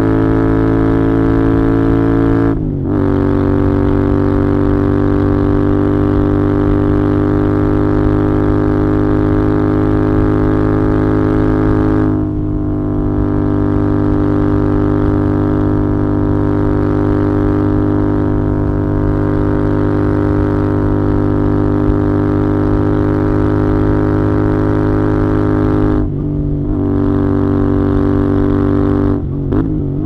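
Royal Enfield Interceptor 650's 648 cc parallel-twin engine and exhaust heard onboard while riding at a steady cruise. The note dips briefly and steps in pitch about three seconds in, again about twelve seconds in, and twice near the end.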